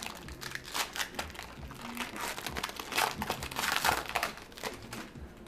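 Plastic wrapping crinkling and tearing in irregular bursts as a sealed trading card box and its pack are opened by hand.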